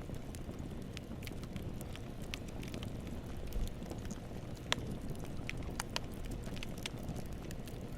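Wood campfire burning: a steady low rumble of flames with scattered sharp crackles and pops of the wood, a few louder pops in the middle of the stretch.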